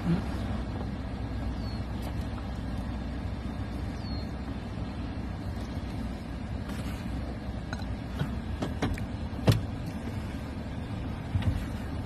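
Steady low rumble of a motor vehicle, with a few light clicks and one sharp knock about three-quarters of the way through.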